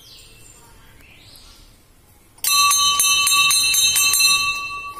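Hanging temple bell rung rapidly, about five strikes a second, starting about two and a half seconds in. The strikes stop near the end and the bell rings on, fading.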